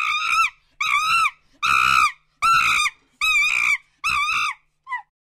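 Long-tailed macaque giving a run of high-pitched screaming calls, seven in all and a little under a second apart. Each call rises and then falls in pitch, and the last is cut short.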